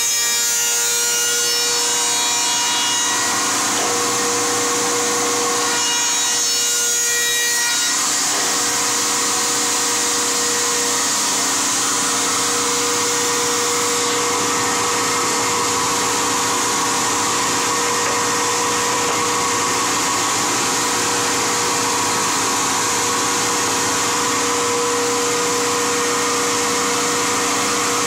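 Casadei C41C combination machine's spindle moulder running with a tenon cutter, cutting a slot in timber as it is fed past on the sliding table: a steady machine whine over the noise of the cutter in the wood, dipping briefly about six seconds in.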